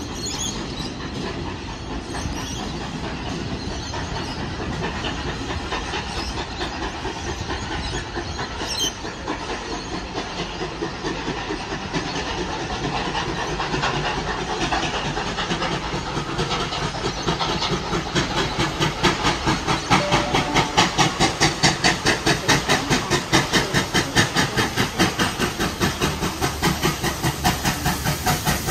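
Steam locomotive 3801 working through the station: steam hiss and a quick, even beat of exhaust chuffs that grows steadily louder over the second half as the engine approaches.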